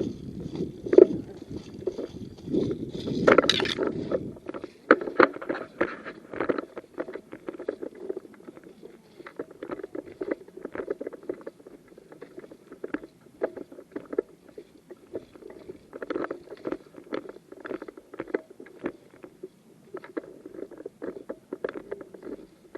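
Irregular rustling, scraping and knocking right at the microphone, as of clothing and gear shifting against a body-worn camera, busiest in the first few seconds with one sharp crack.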